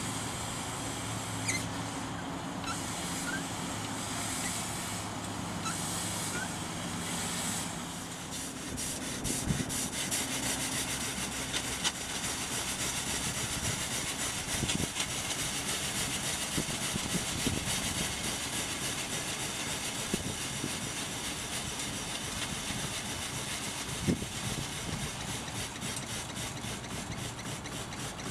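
Steam hissing as it escapes around the small engine of a propane-fired steam launch while its valves are worked, with a few sharp clicks and knocks. A low steady hum underneath fades out about eight seconds in, after which the hiss turns broader with a fast, even pulsing.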